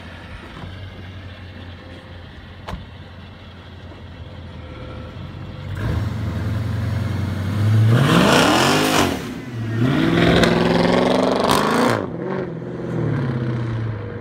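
Supercharged 2014 Dodge Challenger SRT8's 6.4-litre HEMI V8 through a custom Borla exhaust, idling, then revved hard as the car launches and accelerates away. The engine note climbs, drops and climbs again three times, then fades as the car moves off.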